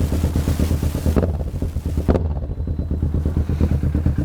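Kawasaki Ninja 650's parallel-twin engine running through its worn Two Brothers Racing canister exhaust, a steady low beat with a louder, hissier stretch for the first two seconds that cuts off sharply. The owner says this old pipe has started to rattle and has small leaks.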